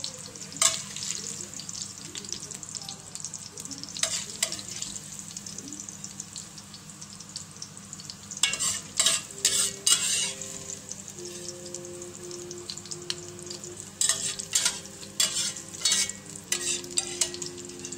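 Vegetable oil sizzling steadily in an enamelled cast-iron pot, with a few strips of ginger still frying in it. Short metallic clatters of a slotted spoon against the pot come near the start, around four seconds in, about halfway through and again near the end.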